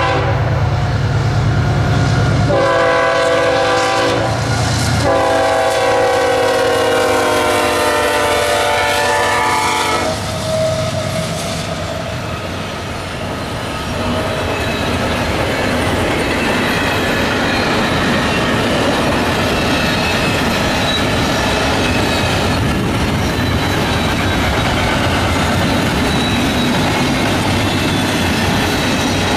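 A CSX freight train's lead GE locomotive sounding its multi-chime air horn in a few long blasts over the diesel engines' rumble for about the first ten seconds. After that the double-stack container cars roll past with steady wheel-and-rail clatter.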